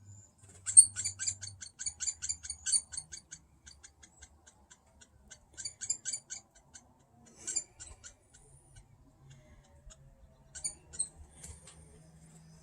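Fledgling woodpecker, taken for a hairy woodpecker, chattering: quick runs of sharp high notes, about ten a second. The longest and loudest run comes in the first few seconds, with shorter bursts later. It is the excited chatter of a young bird at a feeder with sunflower hearts and peanut butter.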